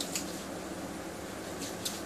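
Hands rubbing leave-in conditioner between the palms and into short hair: a soft swish just after the start and two more near the end, over a steady low hum.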